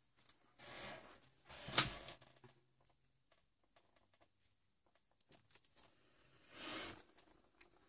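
Quiet handling noises at a painting table: two soft rustles and a single sharp click about two seconds in.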